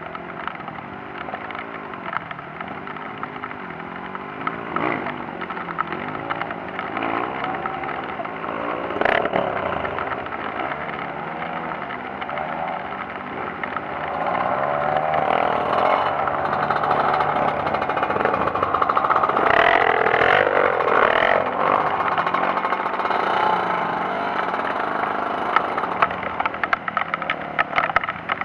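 Trail motorcycle engine revving up and down over and over, as when a dirt bike is worked through rough ground, getting louder about halfway through.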